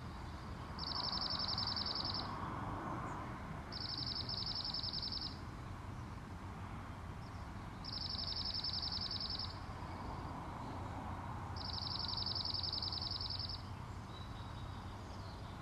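Dark-eyed junco singing: a rapid trill on one high pitch, about one and a half to two seconds long, given four times with pauses of about two seconds between. A steady low background noise runs underneath.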